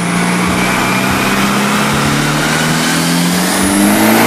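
Isuzu D-Max diesel pickup engine on a chassis dyno in a full-throttle pull, its note climbing steadily in pitch over the rush of the spinning rollers and tyres, and growing louder near the end.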